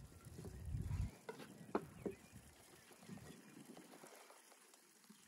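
Pieces of raw lamb being handled from a clay bowl into a clay jar: three light knocks of meat and bone on clay, between one and two seconds in, after a low rumble in the first second.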